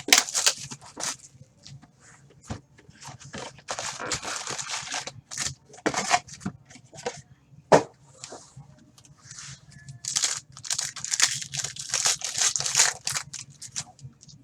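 Plastic wrapping on a box and packs of Panini Contenders hockey cards being torn open and crinkled by hand. It comes in several bursts of tearing and rustling, with sharp clicks and handling noises between them.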